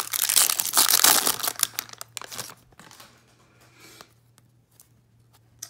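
Foil wrapper of a football trading-card pack being torn and crinkled, loud for about the first two and a half seconds, then fading to faint rustling as the cards are handled.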